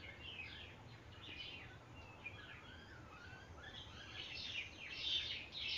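Faint chirping of small birds, many short quick calls, a little louder near the end, over a low steady hiss.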